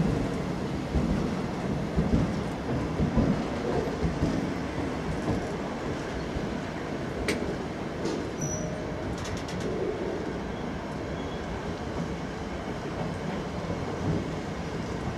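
Freight train rolling past, its wheels rumbling and clattering steadily on the track. There is a sharp click about seven seconds in and a brief high wheel squeal a second later.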